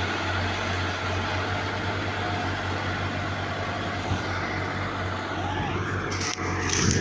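Farm tractor's diesel engine running steadily under load, hauling a heavily loaded sugarcane trolley with its rear wheel churning through mud. A couple of brief knocks near the end.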